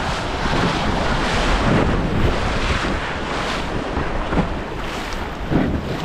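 Swift glacier-fed river current rushing and churning in whitewater, a steady wash of water noise with wind buffeting the microphone.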